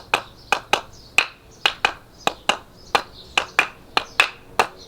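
Two wooden blocks knocked together, beating a steady rhythm of sharp clacks, about three or four a second, many in quick pairs.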